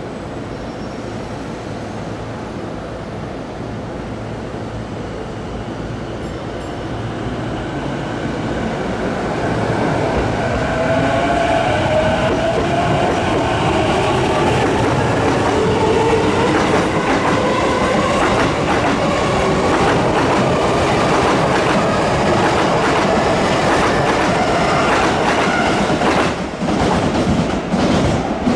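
Sotetsu Line electric commuter train moving along the platform, growing louder over the first ten seconds or so. Its motors whine with a gliding pitch, and from about halfway through the wheels clack over the rail joints.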